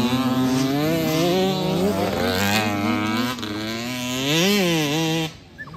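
Several youth dirt bike engines revving, their pitch climbing and falling again and again as the riders work the throttle through the turn. The sound drops away sharply near the end.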